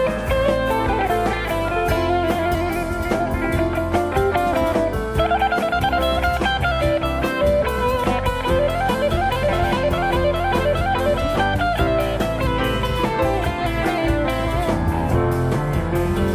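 Instrumental band music: a guitar playing a melodic line over a drum kit keeping a steady beat.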